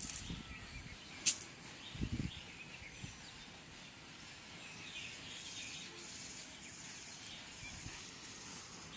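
Quiet rural outdoor ambience with faint bird calls. A single sharp click comes a little over a second in and a soft low thump about two seconds in, while a cast net and its hand line are handled.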